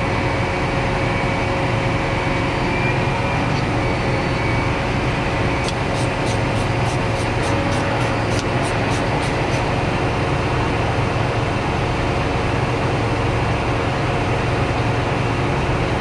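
John Deere 8260R's 9-litre six-cylinder PowerTech diesel idling steadily, heard from the cab. About six seconds in comes a run of about a dozen quick, even clicks, roughly three or four a second, lasting some four seconds.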